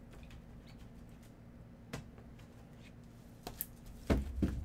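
Clear hard plastic card cases clicking and clacking against each other as a stack is handled, with a few light clicks and then two louder knocks near the end.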